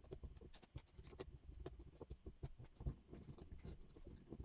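Faint, scattered small clicks and scratches of tools and fingers working on the opened Joy-Con's small plastic parts.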